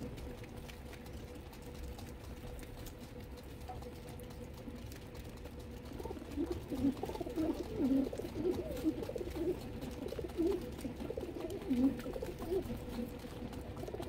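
Domestic pigeons cooing: a run of short, low coos repeated every half second or so, starting about halfway through, over a faint steady hum.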